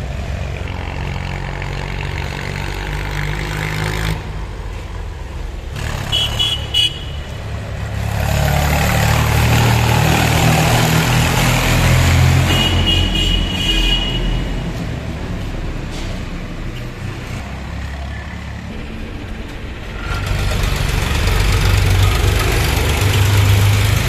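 Diesel tractors pulling loaded trailers pass close by, their engines running with a steady low throb that swells twice, first for a red tractor about a third of the way in, then for a blue Powertrac tractor near the end. Short vehicle-horn toots sound a few times among the traffic.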